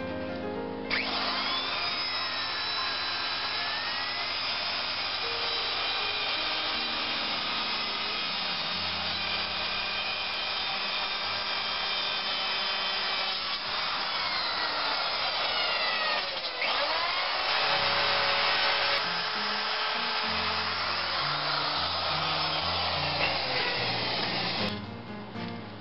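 Old Craftsman router with a 3/4-inch straight bit running and cutting a dado into a pine 2x4. Its whine dips and rises as the bit bites into the wood. It starts about a second in and stops near the end.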